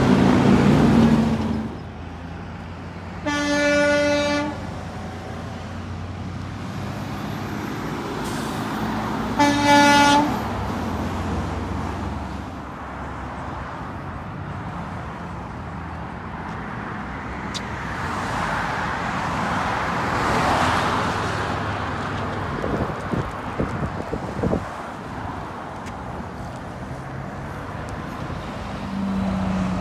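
Roadside traffic: a heavy truck's diesel engine passes close at the start, then a vehicle horn sounds two steady toots about six seconds apart, the first a little longer. After that comes steady road noise, with another vehicle passing by about twenty seconds in.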